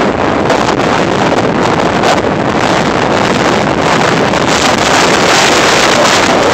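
Loud wind buffeting on the microphone in fluttering gusts, over the running noise of an off-road vehicle.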